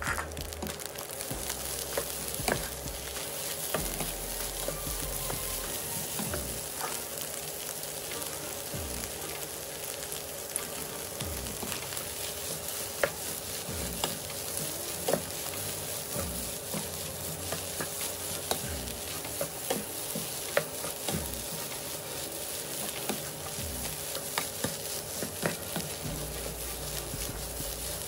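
Fried rice and Chinese kale sizzling in a hot pan while a spatula stirs and tosses it, with frequent short clicks and scrapes of the spatula against the pan.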